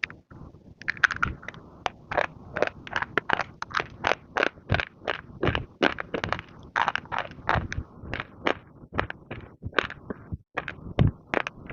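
Baked clay pot pieces being bitten and chewed: rapid, irregular, dry crunches, a few every second.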